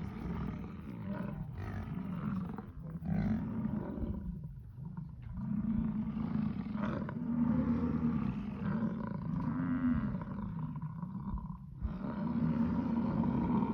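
American bison bellowing during the rut: long, low bellows one after another, with short breaks about five seconds and twelve seconds in.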